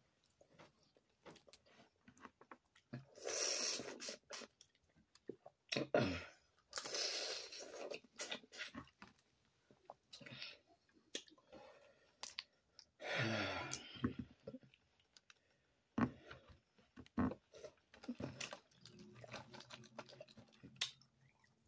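Boiled crawfish being peeled by hand and eaten up close: shells crack and crunch, and there is wet chewing. It comes in short bursts and sharp clicks with quiet gaps between.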